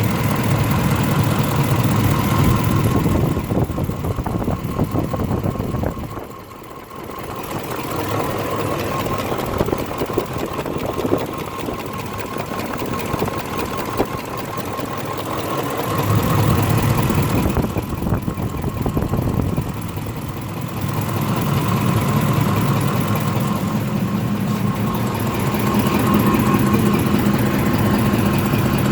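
Ford 5.4-litre three-valve V8 in a 2006 F-150 idling steadily, its level dipping briefly about six seconds in and rising again later.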